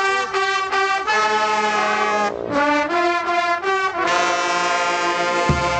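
A marching brass band of trumpets, trombones and a sousaphone plays a tune of short repeated notes and long held chords. A low thumping beat comes in near the end.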